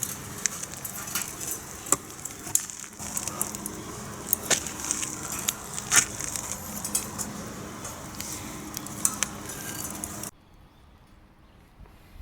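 Wood fire crackling in a secondary-combustion fire pit: irregular sharp pops over a steady hiss. It cuts off abruptly about ten seconds in, leaving a much quieter background.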